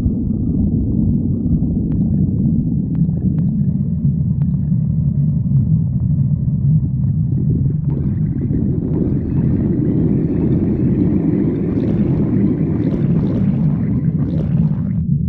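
Stomach growling: a continuous deep rumble, joined about halfway through by higher gurgling that cuts off shortly before the end.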